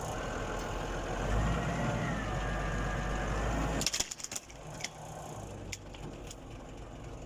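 Isuzu 6BG1 inline-six diesel engine of a forklift running steadily as the forklift drives forward. It is louder for about four seconds, then drops back to a lower, steady run with a few light clicks.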